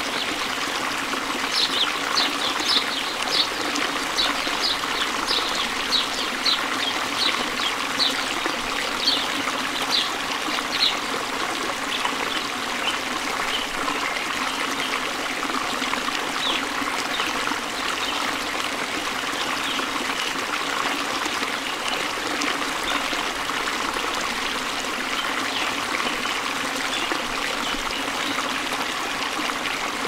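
Rushing stream water, a steady even hiss of rapids. Over it a bird gives a quick series of short high chirps, about two a second, for the first ten seconds or so, then fainter chirps now and then.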